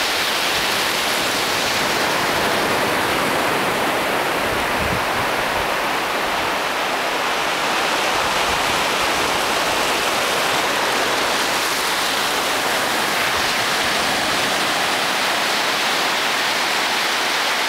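Small waves washing up over a sandy beach: a steady rush of surf and foaming water.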